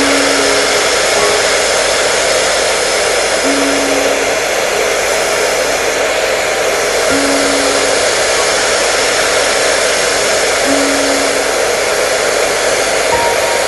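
Hair dryer running steadily: a continuous, even rush of fan and airflow noise with no change in speed.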